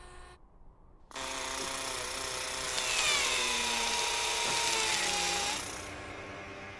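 Sound effect of Curiosity's ChemCam laser zapping a rock: a loud hissing buzz with a slowly falling whine starts about a second in and stops at about five and a half seconds. A quieter steady electric hum follows.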